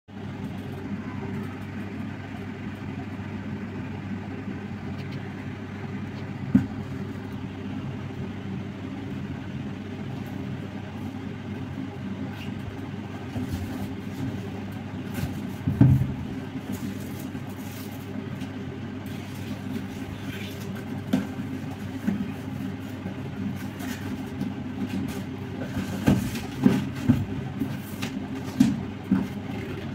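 Cardboard shipping box being handled and opened, with occasional sharp knocks and rustles, most of them in the last few seconds. Under it runs a steady low hum.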